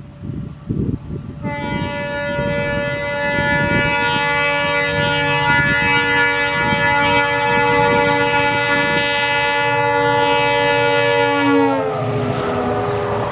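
Diesel locomotive horn sounding one long, loud blast over the rumble of the train. The horn starts about a second and a half in, holds a steady chord, then drops in pitch near the end as the locomotive passes.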